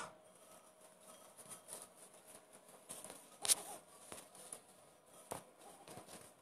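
Goat kids' hooves stepping and rustling in straw bedding, with a few short sharp clicks, the loudest about three and a half seconds in.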